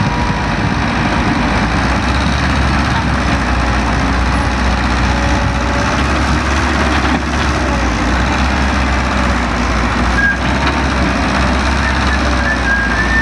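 Heavy diesel engines of an excavator and a dump truck running steadily at a worksite, with a constant low drone.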